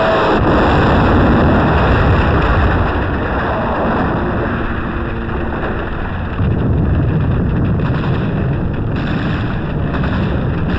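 Battle din on an old film soundtrack: a dense rumble of gunfire and explosions, stepping louder about six seconds in.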